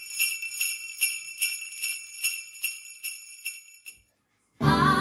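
Jingle bells shaken in a steady rhythm, about two or three shakes a second, fading away. Music with singing starts abruptly near the end.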